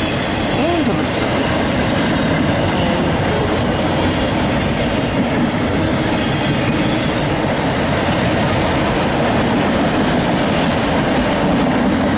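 Empty autorack freight cars of a CSX train rolling past on the rails, a loud, steady rumble and clatter of wheels on track.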